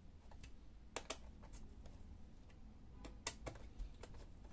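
A few small sharp clicks of a screwdriver working the metal hinge screws of a laptop display, in two pairs, about a second in and again about three seconds in, over a faint low hum.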